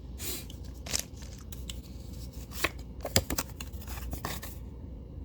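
A foil booster pack of trading cards being opened and handled: a string of sharp crinkles, clicks and short rips of the wrapper.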